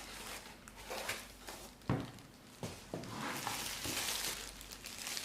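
Packaging being handled while unboxing: rustling and crinkling, with two light knocks about two seconds in.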